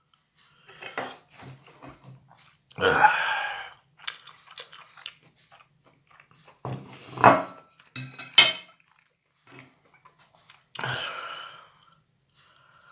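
A person eating microwaved mushrooms: chewing and mouth sounds in several short bursts, with a few sharp clicks and clinks of tableware.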